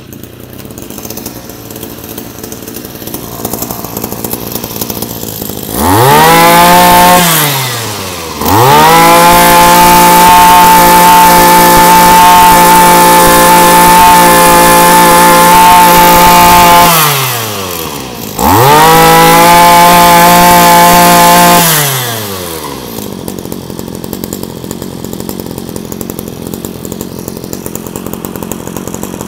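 Robin LB2560 brush cutter's 25 cc engine idling, then revved to full throttle three times: a short blip, a long hold of about eight seconds, then a shorter one. Each rev rises and falls back in pitch before the engine settles to idle. It idles very smoothly and revs crisply, a used engine in good running order.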